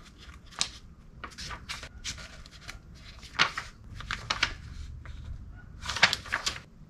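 Paper pages of a repair manual being leafed through: a string of short rustles and flaps, with the loudest page turn about six seconds in.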